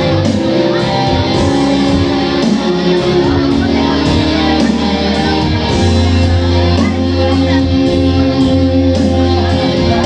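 Music with guitar over a steady bass line; the bass grows fuller about six seconds in.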